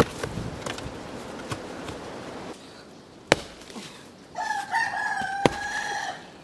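A rooster crows once, a steady call lasting about two seconds, in the second half. Two sharp sledgehammer blows strike volcanic rock, one just before the crow and one during it.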